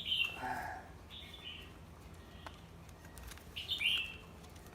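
A small bird chirping a few times in short, high chirps that drop slightly in pitch, over a low steady hum.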